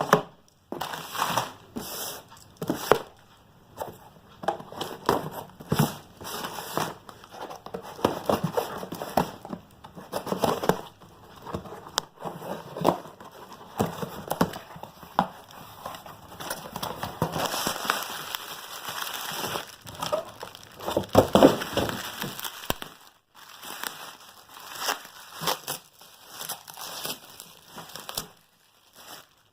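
Plastic packaging crinkling and crackling in irregular bursts as it is handled and unwrapped, louder about two-thirds of the way through.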